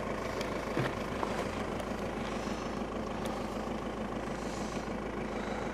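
Steady low mechanical hum, like an engine or generator running, with a few faint clicks.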